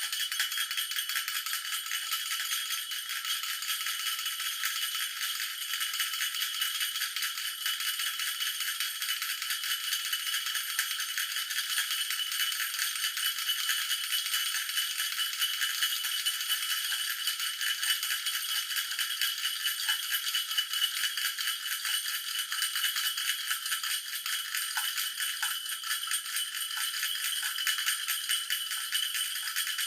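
Toy bell shaken without pause, a rapid, continuous high-pitched jingling with steady ringing tones over it.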